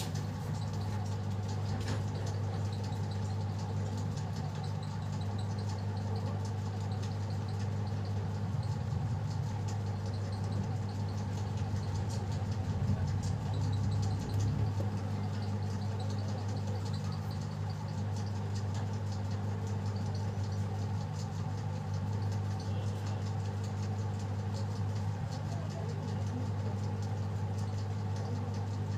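Hot-air rework station blowing on a phone's circuit board to heat and reflow a power IC, its blower giving a steady, even hum.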